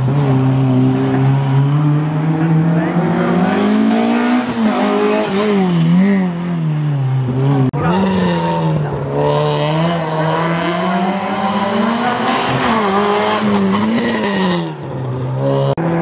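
Small hatchback rally cars driven hard through a hairpin, one after another. Each engine's note repeatedly rises and drops as the driver blips the throttle, brakes and changes gear. An abrupt change about halfway through marks the next car.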